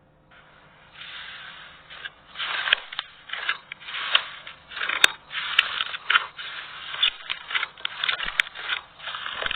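Slime being worked, making irregular crackling, scraping noises in short bursts from about a second in, with a few sharp clicks.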